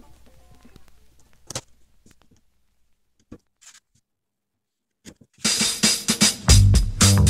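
Background music: one track fades out over the first couple of seconds, then comes a near-silent gap of about three seconds with a few faint clicks. A new track with drums starts about three-quarters of the way through, and a heavy bass comes in a second later.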